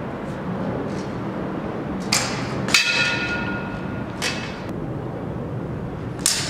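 Steel shamshir sabres and bucklers striking each other in sparring: sharp metal clashes about two seconds in, the loudest ringing on for about a second, another about four seconds in and one more near the end, over a steady low rumble.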